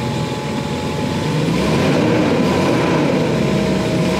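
1984 Ford Bronco II's 2.8 V6 engine, running on a newly fitted Holley Sniper EFI, idling hot just after a hot start. From about a second and a half in, its pitch rises and falls twice.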